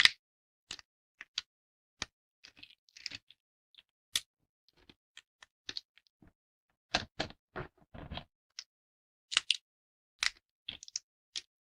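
Dry soap plates snapped and broken apart by hand: crisp, irregularly spaced cracks, with a denser crunching run about seven to eight seconds in.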